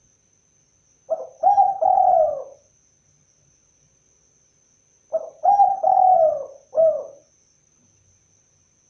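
Spotted dove (tekukur) cooing: two phrases of three or four low notes, the second starting about four seconds after the first.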